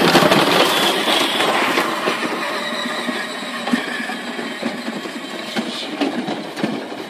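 Battery-powered ride-on toy quad driving across dry grass: its electric drive motors and plastic gearboxes whir and its plastic wheels rumble over the lawn. The sound is loudest at the start and eases off over the first few seconds as the quad moves away.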